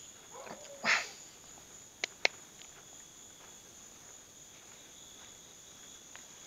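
Crickets chirring steadily, with a dog barking once about a second in. Two sharp clicks come a little after two seconds.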